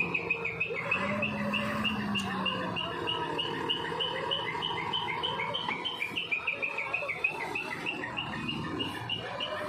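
A small bird chirping in a rapid, even series, about three chirps a second on two alternating notes, over the low, faint running of a diesel truck engine.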